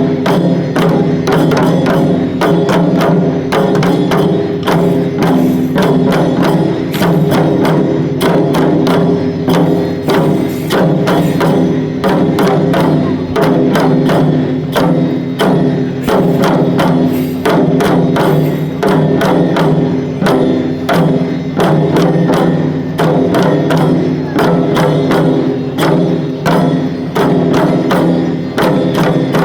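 Shishimai lion-dance accompaniment: a drum beaten in a fast, even rhythm with sharp clicking strokes over a steady sustained ringing tone.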